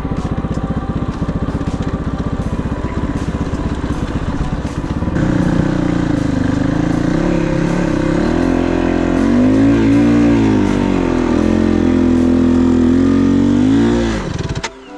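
Single-cylinder four-stroke engine of a Kovi 450i Pro enduro motorcycle, pulsing steadily at low revs, then revving harder from about five seconds in, its pitch rising and falling several times. The engine note drops away sharply near the end.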